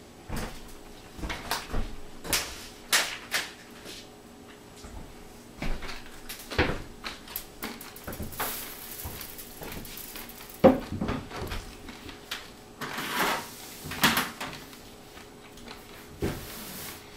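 Irregular handling noises: taps and knocks on a wooden tabletop with bursts of rustling, as loose flax seeds are set out and spread by hand. One sharp knock a little past the middle is the loudest.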